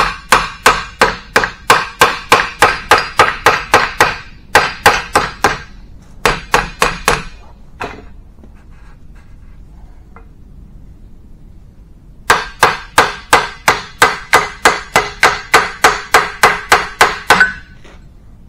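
Hammer tapping on the head gland of a steel hydraulic cylinder clamped in a vise: quick ringing metal blows, about four a second, in runs with a pause of a few seconds in the middle. The tapping knocks the head gland loose so it can be drawn out of the barrel.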